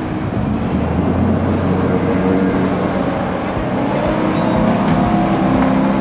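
Yamaha F350 V8 four-stroke outboard on an 8 m RIB running under power, a steady engine drone as the boat turns and speeds past.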